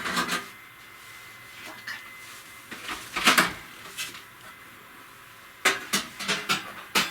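Metal wire rack of an Indesit oven clattering against the oven as it is fitted into the slots: a knock at the start, a cluster of clanks about three seconds in, and a quick run of clicks and clanks near the end.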